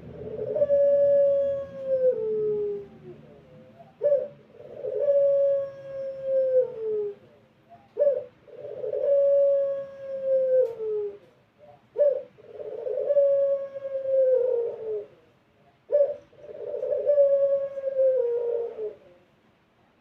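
Puter (Barbary dove) of the long-voiced pelung type cooing: five long drawn-out coos about every four seconds, each opening with a short sharp note, then held at one pitch for two to three seconds before falling away at the end.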